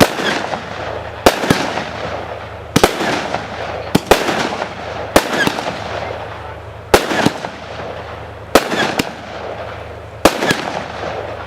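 A 25mm consumer firework barrage (cake) firing shot after shot, about eight in all, each a quick double bang about a second and a half apart, with a hiss between the shots.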